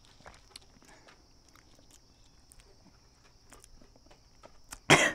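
Faint steady high-pitched chirring of insects with a few small faint clicks, then a sudden loud, short burst of noise near the end.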